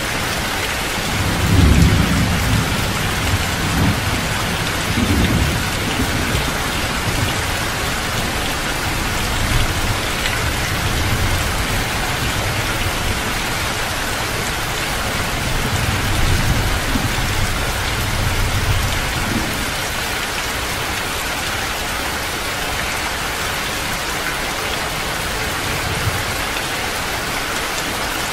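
Heavy rain pouring steadily, with low rolls of thunder rumbling under it: the loudest about a second in, and weaker ones a few seconds later and again around the middle.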